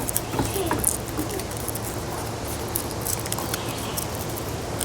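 Foam glider wing being worked through the slot in the foam fuselage: a run of small, irregular scratchy rubs and clicks of foam on foam, over a faint steady low hum.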